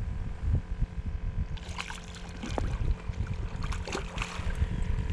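Small fishing boat on the water: a steady motor hum over a low rumble, joined about a second and a half in by a hiss of splashing water.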